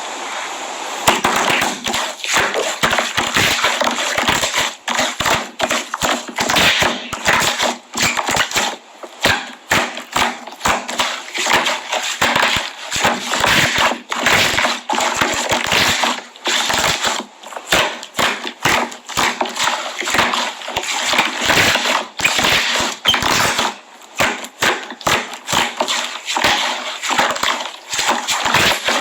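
Milky 'pure milk' slime being squished and pressed by hand, giving a fast, dense run of loud crackling clicks and pops from trapped air. It gets louder about a second in.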